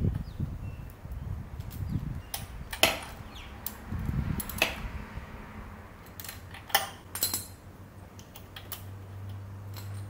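Scattered metallic clicks and taps from fitting a new spark plug into a Briggs & Stratton lawn mower engine. A faint steady low hum comes in near the end.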